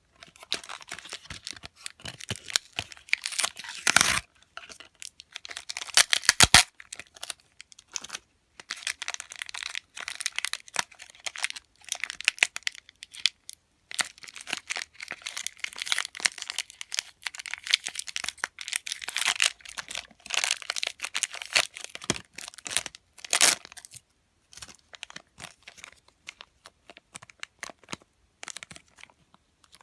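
Packaging wrappers being torn open and crinkled by hand, in irregular crackling spurts, with a few louder rips about four and six seconds in.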